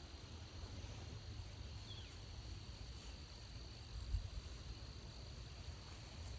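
Crickets chirping in a steady, high-pitched chorus over a low rumble, with a single dull thump about four seconds in.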